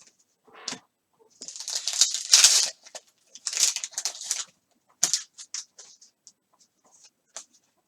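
Foil trading-card pack wrapper being crinkled and torn open, in two bursts of rustling, with small clicks and slides of the cards being handled.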